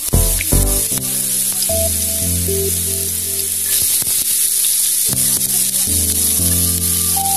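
Julienned ginger and sliced red onion sizzling in hot oil in a pan, a steady frying hiss, with chill house background music playing over it.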